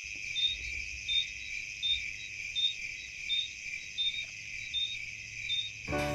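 Crickets chirping: a steady high trill with a sharper chirp repeating about every three-quarters of a second. Music comes in just before the end.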